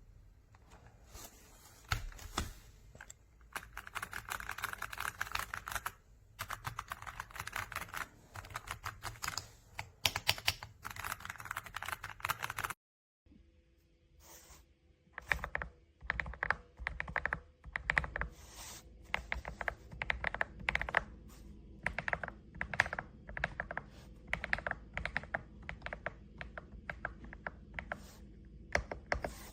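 AULA F99 mechanical keyboard being typed on: quick runs of keystrokes with short pauses between bursts. The sound cuts out completely for a moment about 13 seconds in, then the typing resumes.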